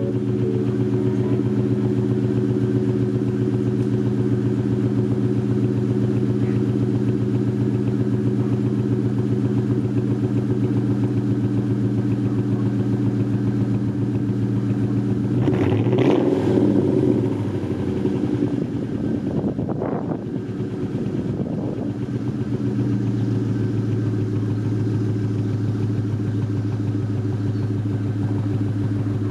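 Ford Mustang GT V8 idling through a Borla ATAK cat-back exhaust, revved once about halfway through and blipped twice more shortly after, then settling back to a steady idle.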